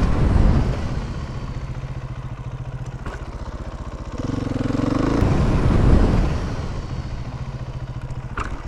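Motorcycle engine running under throttle. It is loud at first and eases off after about a second, then is opened up again about four seconds in. It gets louder until about six seconds and falls back to a steadier lower running.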